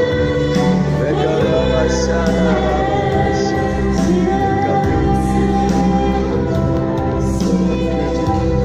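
Music: a song with singing over instrumental accompaniment, with steady bass notes and short cymbal-like hits every second or so.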